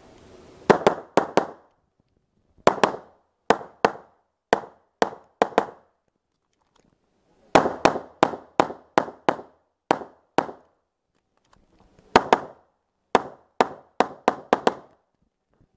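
Semi-automatic pistol fired rapidly close to the microphone: shots come mostly in quick pairs and strings of several, with short silent gaps of one to two seconds between strings, around six and eleven seconds in.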